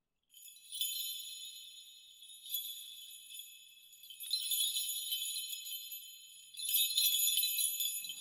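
High, thin jingling of small bells that swells up and fades four times, with nothing in the low range.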